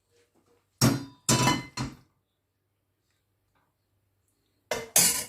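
Dishes and utensils clinking and knocking: three quick knocks about a second in and two more near the end.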